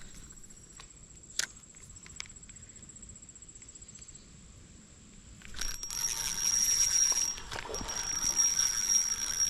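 Fishing reel being cranked to bring in a fish: after a quiet start with a few light clicks, the reel starts up about five and a half seconds in, a steady mechanical whirring with a high whine, broken briefly about two seconds later.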